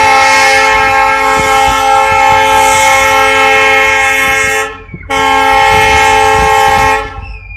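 Air horn of a WDP4D diesel locomotive sounding: one long blast of about five seconds, then after a short break a second blast of about two seconds, a loud steady chord that cuts off sharply.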